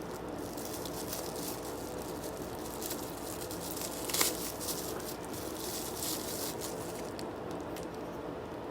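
Packaging rustling and crinkling as it is handled and opened, with a sharper, louder rustle about four seconds in, over a faint steady hum.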